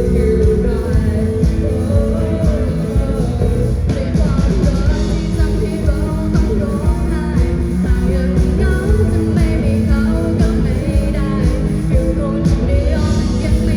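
Rock band playing a song live, with a singer's voice over the band.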